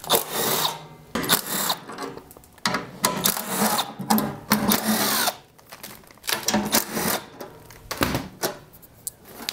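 A cordless impact driver hammering in several bursts as it runs out the snowblower's belly-pan bolts. After that come a few separate knocks as the sheet-metal pan is handled and pulled off.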